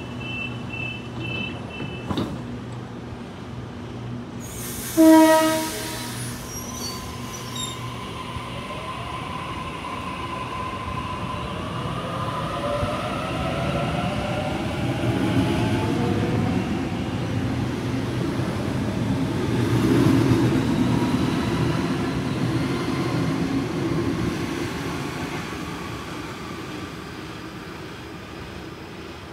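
Waratah A-set electric train leaving the platform: a pulsed two-tone door-warning beep at the start, a short horn blast about five seconds in, then the rising whine of the traction motors as it accelerates and the rumble of the cars rolling past, fading near the end.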